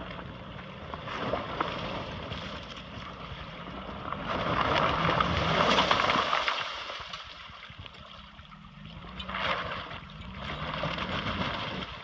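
Pickup truck backing through a shallow creek: the engine runs steadily under load, its revs rising a few times in the later part, while the tyres churn and splash through the water, loudest around the middle.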